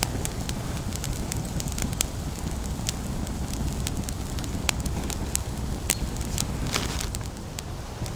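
Small twig campfire burning and crackling, with sharp irregular pops over a steady low rumble.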